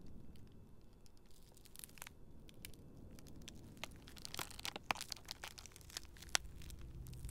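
Leafy salad greens torn by hand and dropped into a stainless steel bowl: a scatter of crisp tearing and crackling, thickest about four to five seconds in.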